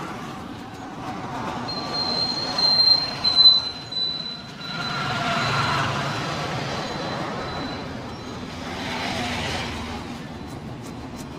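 Street traffic noise with a long, high, steady squeal that lasts about six seconds.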